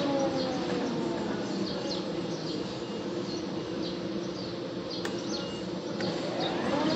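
20-inch automatic thickness planer's motor and cutterhead humming. The pitch sags in the first second as if under load, then climbs back to its steady running pitch near the end.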